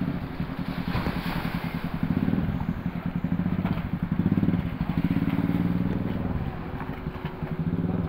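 An engine running close by with a fast, even, low pulse, growing louder and softer.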